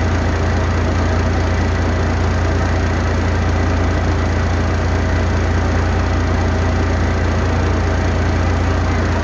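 Heavy vehicle engine idling steadily, with a strong deep hum and an even noisy wash above it.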